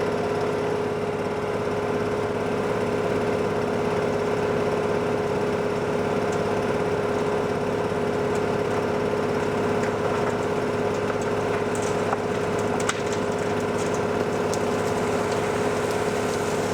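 Diesel engine of construction plant running steadily at a constant speed with a strong even hum. A few faint clicks and knocks come in the second half.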